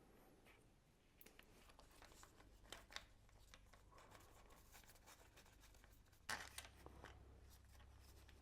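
Near silence with a few faint, short clicks and taps of engine parts and bolts being handled. The sharpest come about three seconds in and again about six seconds in.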